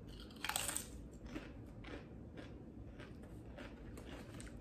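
A Pringles potato crisp bitten with a crunch about half a second in, then chewed with a run of small, crisp crunches about two a second.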